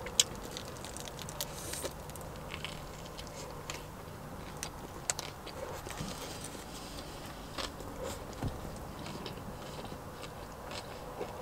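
A person biting into a cheeseburger with lettuce and cheese in a soft bun, then chewing it close to the microphone with small wet mouth clicks. The sharpest click comes just after the start, at the bite.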